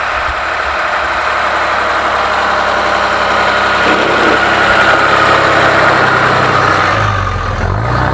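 Vehicle engine pulling through deep snow on chained front tyres, a steady run of engine and tyre noise, with the engine note rising near the end.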